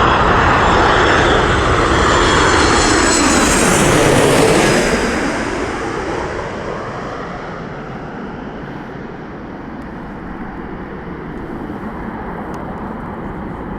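Jet airliner passing close by: a loud engine rush with a high whine that drops in pitch about four to five seconds in, then fades to a steadier, more distant rumble.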